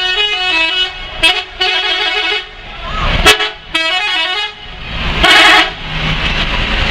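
Bus's multi-tone 'telolet' musical horn playing two short runs of stepping notes, then a single louder blast a little after five seconds. A sharp click comes about three seconds in.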